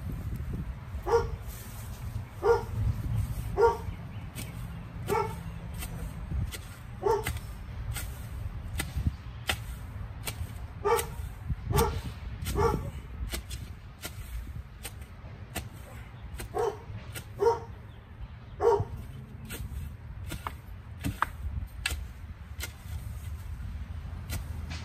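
A dog barking over and over: more than a dozen short barks, a second or so apart, with a pause in the middle. Scattered clicks and a low rumble run underneath.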